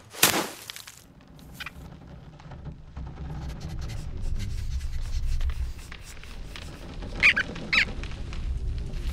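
Cartoon sound effects: a sharp whoosh or snap just after the start, then a low rumble that grows louder. About seven seconds in come two short high squeaks, like a small rodent's cries.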